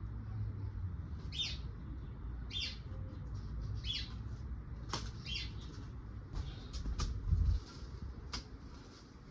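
A small bird chirping, short high calls roughly once a second, then several sharp clicks in the second half over a low rumble.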